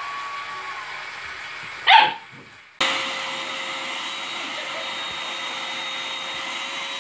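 A German Shepherd puppy barks once, about two seconds in. Shortly after, an upright vacuum cleaner starts abruptly and runs with a steady whine.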